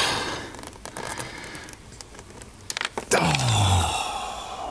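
Light clicks and knocks of a small part dropped inside a car door, rattling down behind the door panel. About three seconds in comes a low sound that falls in pitch.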